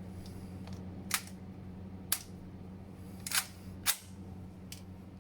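A few sharp, separate metallic clicks and clacks, spaced about a second apart, from handling an HK MP5K submachine gun as it is readied to fire. They play over a steady low hum.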